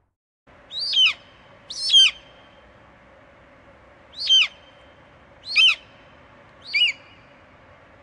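Eagle calling: five short, high calls, each sliding down in pitch, over a faint steady hiss.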